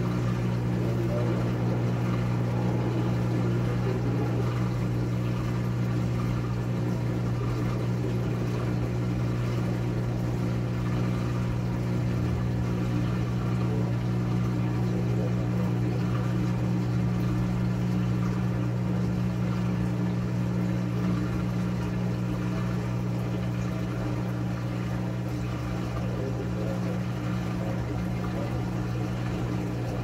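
Top-loading agitator washing machine running with a steady, even hum.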